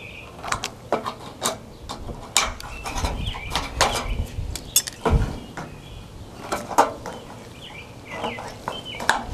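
Hand snips cutting half-inch tabs into the end of aluminum G-channel trim, heard as a string of short, sharp clicks at irregular intervals.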